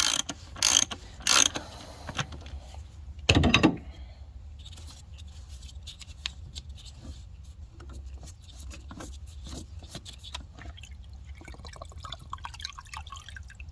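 A few sharp tool clicks, a single loud knock about three and a half seconds in, then faint dripping and small ticks as the diesel fuel filter housing is opened. The housing is still full of fuel, so the fuel has not drained back and the filter is not the cause of the hard start.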